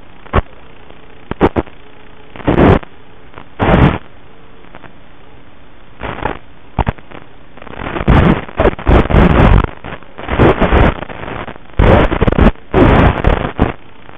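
FPV racing quadcopter's onboard microphone: a steady hiss with a faint motor hum, broken by harsh, distorted bursts of motor and propeller noise that start and stop suddenly. The bursts come close together in the second half.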